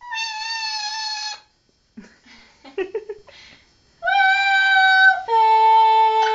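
A red-lored Amazon parrot and a girl trading long, steady pitched calls, the parrot copying the noises she makes. There are three held calls, the last one lower, with a few short scrappy sounds between the first and second.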